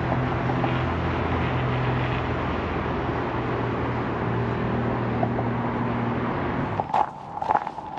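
A motor vehicle's engine running with a steady low hum and road noise. About seven seconds in it cuts off abruptly and footsteps take over.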